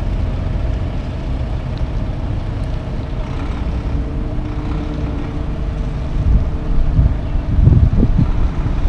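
Diesel engine of a Volvo Class 8 semi truck running as the tractor-trailer creeps through a turn, a steady low rumble that swells louder near the end.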